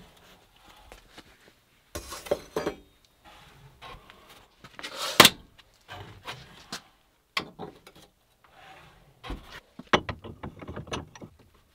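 Metal clanks and clicks from handling an electric heat-treat kiln and hot steel: the kiln door is worked, with the sharpest and loudest clank about five seconds in. Near the end a quick run of metal knocks and clinks comes as the red-hot axe head is set into a bench vise.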